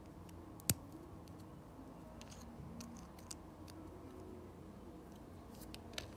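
Plastic Lego bricks being handled and pressed together: a sharp click about a second in, a few lighter clicks and taps in the middle, and another sharp click near the end.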